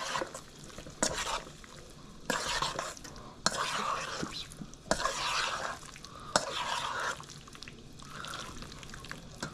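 Thinly sliced beef being mixed in a wet soy-sauce and cornstarch marinade in a bowl: repeated wet swishing strokes about once a second, with a few sharp clicks against the bowl.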